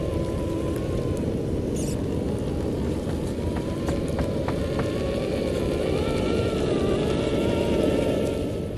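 Scale RC rock crawler's brushless motor and gear drivetrain whining, the pitch wavering up and down with the throttle as it crawls, over a steady low rumble, with a few light clicks midway.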